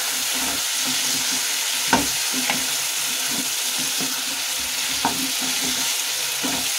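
Whole boiled baby potatoes being stirred with a spatula through sizzling tomato masala in a non-stick kadhai: a steady sizzle, with a few sharp knocks of the spatula against the pan, the loudest about two seconds in.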